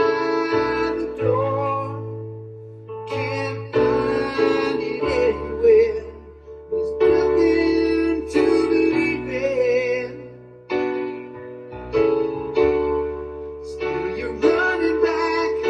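Music: keyboard or piano chords under a sung melody, moving in phrases of one to two seconds with short breaks between them.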